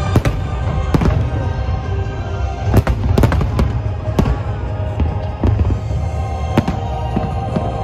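Aerial fireworks shells bursting in sharp, irregular bangs, sometimes two in quick succession, over music playing with the show.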